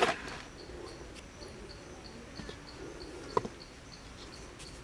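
An insect chirping steadily, a short high chirp about three times a second. At the start a woven bamboo basket is shifted on a rack of wooden sticks with a rustling knock, and about three and a half seconds in there is one sharp knock as a coconut-shell bowl is set down on the sticks.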